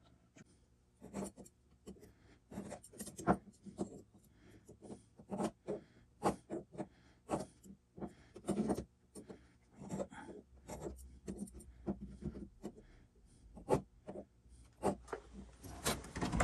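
Repeated short scratching strokes of a marking tool drawing layout lines on an aluminum block.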